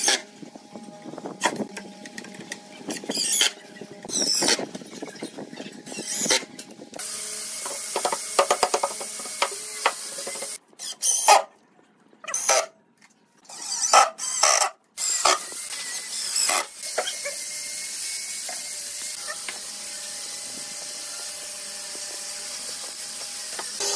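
Cordless impact driver driving screws into pine cabinet panels in short bursts, about one every second and a half. From about seven seconds in, a steady noise runs under the sound, with several sudden breaks.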